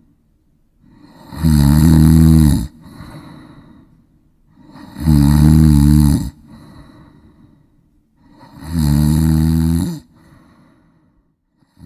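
A person snoring: three loud snores about three and a half seconds apart, each followed by a fainter breath.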